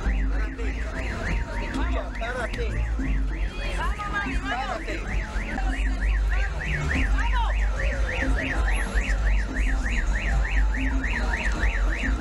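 An electronic siren warbling rapidly up and down in pitch, about three cycles a second, over a steady low rumble.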